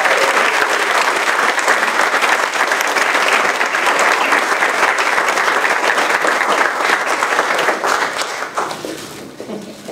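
Audience applauding, dying away about eight and a half seconds in.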